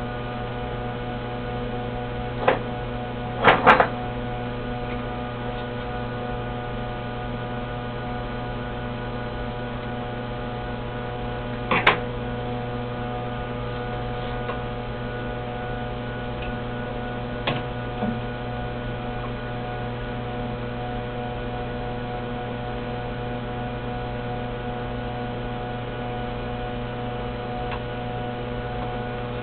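Disk punch machine powered up and humming steadily, with a few sharp clicks: a cluster about three to four seconds in and single ones about 12 and 17 seconds in.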